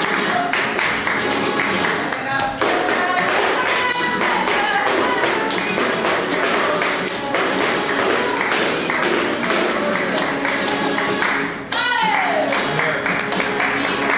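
Live flamenco bulerías: nylon-string flamenco guitar playing with rhythmic hand-clapping (palmas) and a dancer's shoe taps in the first part. A voice sings or calls out over it at times.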